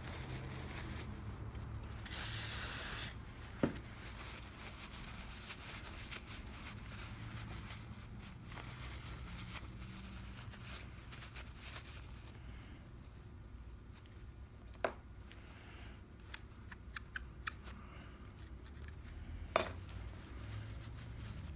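Small metal mortise-lock parts being handled on a workbench: scattered sharp clicks and light clinks, with a brief hiss about two seconds in.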